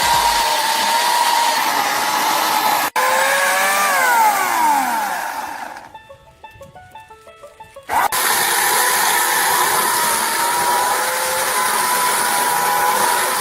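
Portland 14-inch electric chainsaw's motor running at full speed with a steady high whine. About four seconds in it winds down, its pitch falling. After a short quieter gap it runs at full speed again from about eight seconds in.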